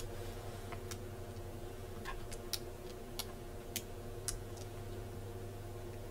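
Light, sharp clicks, about six spaced irregularly, of metal tweezers on a small ribbon-cable connector as the front-panel LED cable is fitted to a laptop motherboard, over a faint steady hum.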